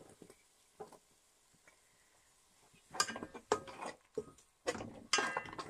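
Spatula scraping and clinking against a plate and a metal cooking pot as chopped green chillies, ginger and garlic are pushed into the pot. A few light clicks at first, then two bursts of scraping about three and five seconds in.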